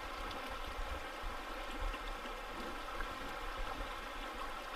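Steady flow of a shallow, rocky mountain river.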